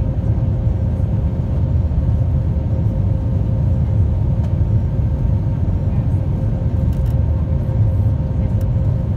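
Airliner cabin noise just after takeoff: the engines and the air rushing past make a steady low rumble, with a faint steady hum above it.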